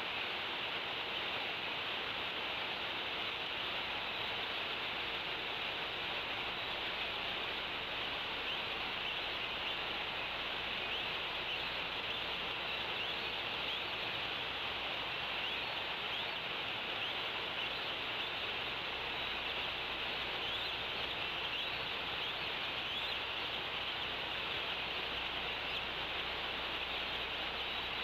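Steady outdoor hiss picked up by the nest camera's microphone, with faint bird chirps now and then.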